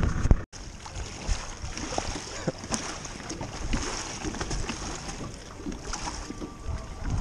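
Small waves lapping at a rocky shore and against a beached metal boat hull, with scattered light knocks and some wind on the microphone.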